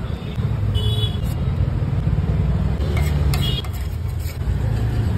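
Roadside traffic noise with vehicle engines running, plus a few sharp clicks about three to four seconds in.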